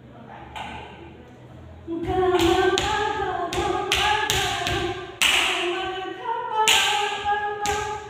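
Odissi dance music beginning about two seconds in: a stepping melody over sharp, closely spaced percussive strikes.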